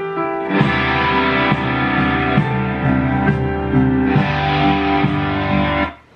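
Loud rock-style music with guitar, its chords changing about once a second. It starts abruptly and cuts off suddenly near the end.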